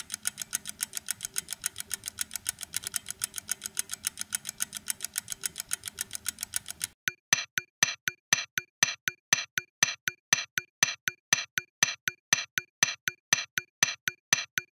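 Rapid, machine-even clicking, about six clicks a second. About seven seconds in it changes to sharper, ringing clicks at about four a second.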